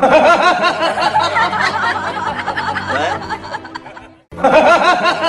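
A soundtrack of high-pitched giggling laughter over a steady music bed. It fades, cuts out about four seconds in, and starts over as a loop.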